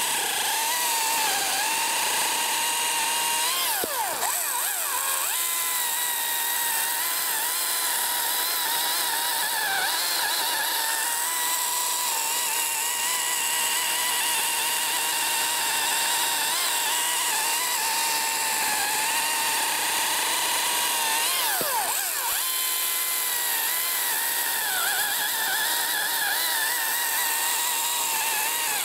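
Husqvarna T535iXP battery chainsaw cutting through a log, its electric motor and chain making a steady high whine over the hiss of the chain in the wood. The pitch sags and recovers twice, about four seconds in and again a little after twenty seconds.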